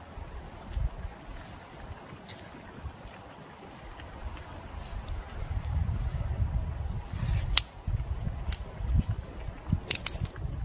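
Insects singing in a steady high-pitched drone, with a few sharp snaps or cracks in the second half over low rumbling.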